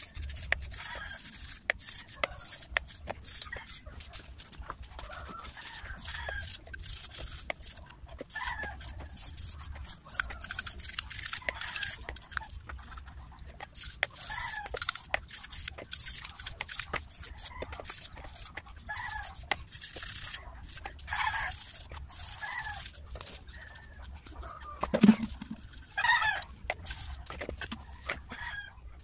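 A toothbrush scrubbing metal Makita electric planer parts in a basin of dirty cleaning liquid, in quick, repeated wet brushing strokes. Short animal calls sound off and on in the background, with louder ones about 25 seconds in.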